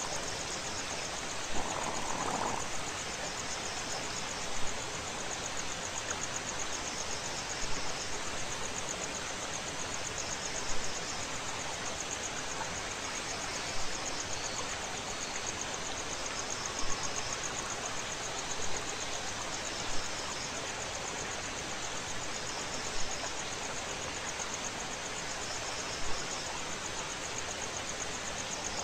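Natural outdoor ambience: a steady insect trill, cricket-like, over an even rushing noise, with a short call repeating about every three seconds.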